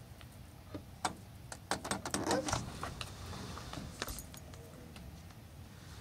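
Deer's hooves clicking and scuffing on a concrete patio: a scattered run of sharp clicks, busiest around two seconds in, with a last single click about four seconds in.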